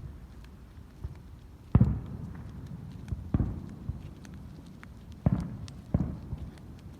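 Aerial fireworks bursting: four loud booms and a few fainter thuds, each dying away in a short rumble.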